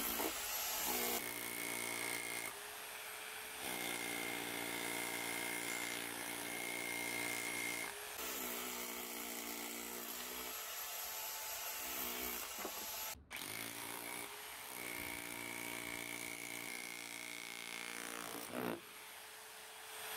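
Parkside PBH 1500 F6 1500 W SDS-plus rotary hammer in chisel-only mode, driving a chisel into a concrete block. It runs in several bursts of a few seconds with short pauses between. The blows come too fast to count separately and merge into one steady hammering note.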